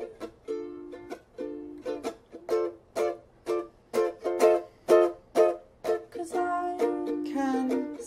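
Instrumental passage of a song: a strummed string instrument playing chords in a steady rhythm, about two strums a second, with longer held notes coming in near the end.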